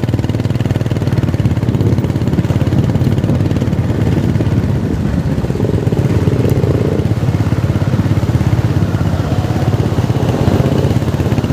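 A vehicle engine running steadily, heard from on board while moving through city streets, with a low, even pulsing rumble.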